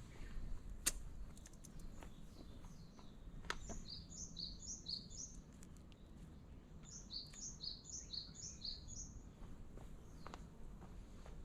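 A small bird singing two quick runs of high, repeated chirps, the first about four seconds in and the second around seven seconds in, with a few faint sharp ticks before them.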